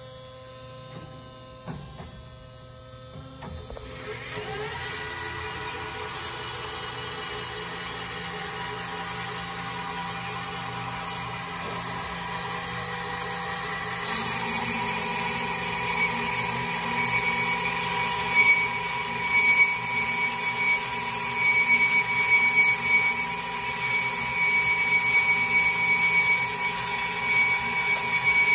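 BTM Model 370A horizontal CNC bandsaw starting up: a few clicks, then about four seconds in the motor runs up with a rising pitch and settles into a steady run. About halfway it gets louder with a steady high whine and uneven loudness as the lowered blade cuts through bar stock.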